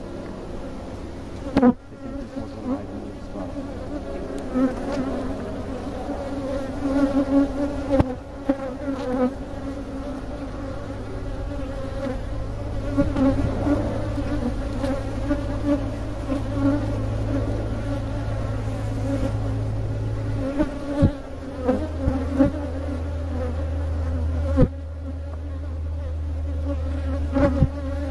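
Honeybees buzzing in a steady swarm hum around an open hive as its frames are lifted out, with a few sharp knocks.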